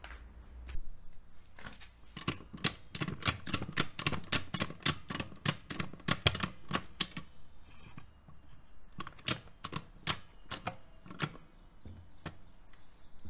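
Hydraulic floor jack being pumped by hand to take the engine's weight: a run of quick clicks and knocks, about four a second, then a pause and a few more.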